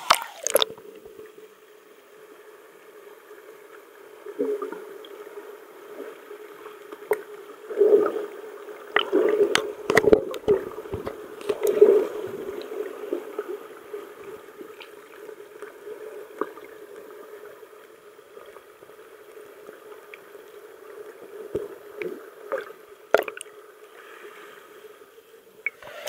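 Muffled gurgling and sloshing of water, dull throughout, with irregular knocks and splashes that are loudest from about eight to twelve seconds in.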